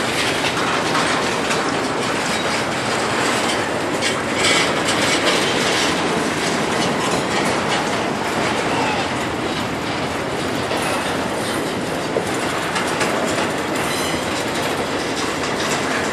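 Double-stack intermodal freight train's well cars rolling past at a grade crossing: a steady rumble and clatter of steel wheels on the rails.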